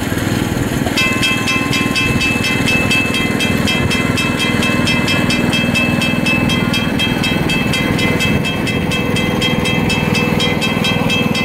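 Ride-on train running with a steady low rumble. About a second in, a rapid, evenly spaced ringing starts, roughly five strokes a second, and keeps going.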